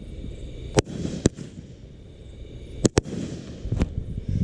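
A 36-shot consumer fireworks cake firing its shots one at a time: four sharp bangs at uneven gaps of half a second to a second and a half.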